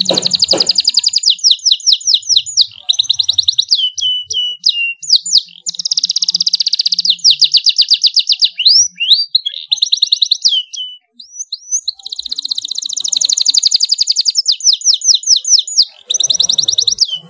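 Domestic canary singing a loud, vigorous song of fast rolling trills and repeated sweeping notes, with a short pause about eleven seconds in.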